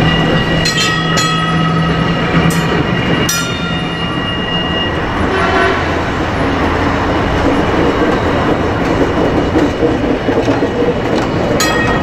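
Vintage trams running past on the rails, with the rumble of wheels on track growing as a car passes close. A tram's gong bell is struck about four times in the first few seconds, its clangs ringing on, and once more near the end.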